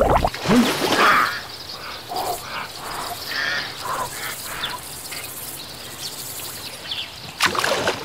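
Cartoon nature sound effects: water splashing at the start and again near the end, with short bird chirps and calls in between.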